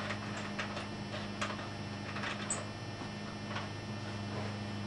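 A few faint, scattered clicks and taps of metal parts being handled as a rod-holder mount is fitted onto a wheelchair, over a steady low hum.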